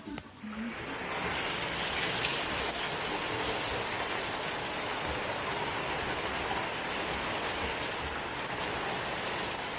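Steady rain falling, a continuous hiss that comes in within the first second and then holds even.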